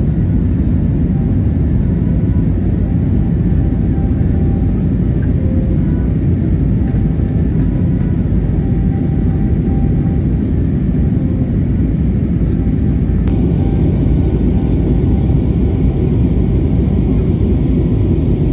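Steady low rumble of jet engines and rushing air heard inside a passenger airliner's cabin in flight.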